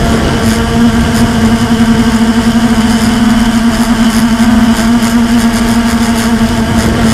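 Blade 350 QX quadcopter's brushless motors and propellers running in flight, heard close up through the onboard camera's microphone: a loud, steady buzzing hum that swells slightly in level, over a rush of air noise.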